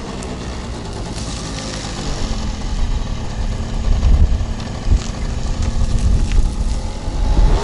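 Honda Giorno AF24 scooter's 50 cc two-stroke engine running while it is ridden, with wind buffeting the microphone; the sound grows louder and gustier over the second half.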